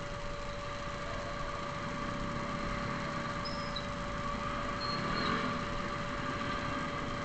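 Motorcycle and scooter engines idling and creeping along in a heavy traffic jam, a steady mix of engine noise.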